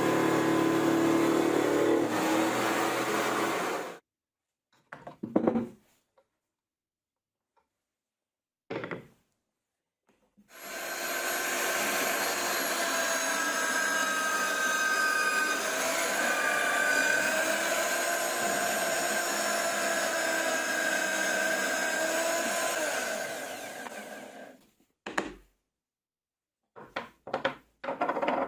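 A band saw runs, cutting a plywood disc, and stops short about four seconds in. After a few brief handling sounds, a drill press starts up with its bit in a plywood disc and runs steadily with a whine for about fourteen seconds before running down. Near the end, plywood discs knock a few times as they are set down on a wooden bench.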